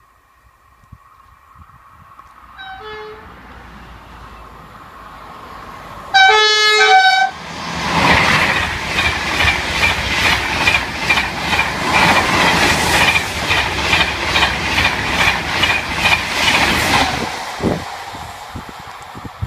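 Double-deck TGV high-speed train (a TGV Réseau Duplex coupled to a TGV Duplex) sounding its horn: a short faint toot, then a loud blast of about a second. It then passes at speed with a loud rush and a regular clickety-clack of wheels, about two beats a second, fading away near the end.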